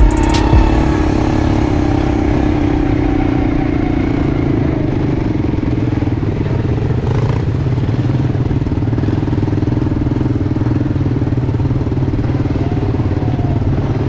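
ATV (quad bike) engine running steadily at low speed close to the microphone.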